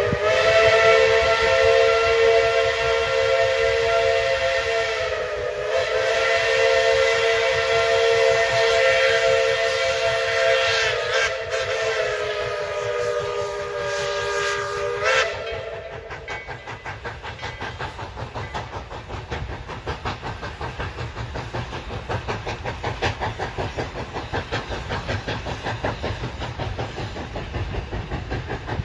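East Tennessee & Western North Carolina No. 12, a 4-6-0 steam locomotive, sounding its chime steam whistle in one long chord-like blast of about fifteen seconds, its pitch wavering twice before it cuts off. After that the locomotive's exhaust chuffs in a steady rhythm as it works the train.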